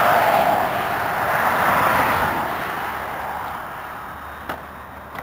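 Traxxas E-Maxx electric RC monster truck's motors and drivetrain whirring as it crawls over rocks. The whirring is loudest at the start and fades away, with a sharp click near the end.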